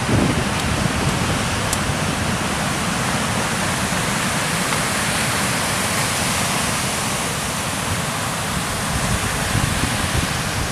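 Surf breaking on a sandy beach: a steady rushing wash of waves.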